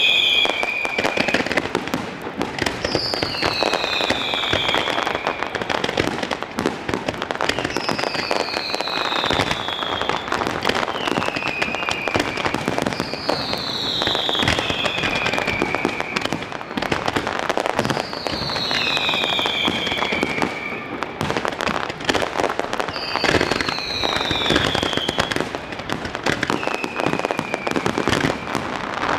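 Fireworks display with continuous crackling and popping bursts. Over it, a whistle falling in pitch repeats about every four to five seconds.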